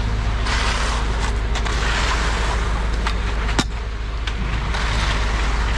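Concrete pump truck running steadily with a low engine rumble and a hissing noise above it, with a sharp knock about three and a half seconds in.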